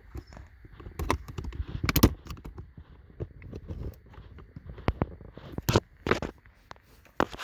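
Scattered clicks, taps and scrapes of a screwdriver and plastic parts being handled while a connector is pried off a car's climate control panel, the sharpest knocks about 2 s and 6 s in.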